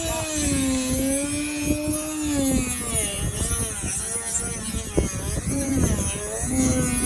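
Electric sander running on wood, its motor hum wavering up and down in pitch, with scattered knocks and rattles underneath.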